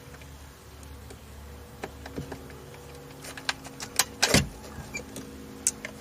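Sharp plastic clicks and scraping as a map-light switch is pried and worked loose from a car's overhead console. The loudest is a longer scrape-and-snap about four seconds in. A faint steady hum runs underneath.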